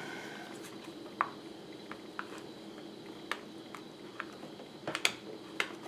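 Faint handling noises: scattered light clicks and taps of small metal and plastic parts as an electric motor is worked back into an RC truck's chassis, with a few sharper clicks near the end.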